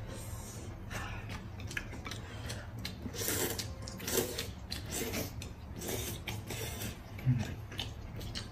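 Noodles being slurped from bowls of soup: a string of short, noisy slurps about a second apart, with chewing between.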